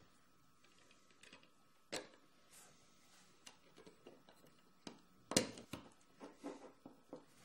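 Small clicks and taps of metal ball bearings and dowel pins being fitted by hand into a 3D-printed plastic extruder part. A sharp click comes about two seconds in, the loudest cluster of clicks a little past five seconds, and a few lighter ones after it.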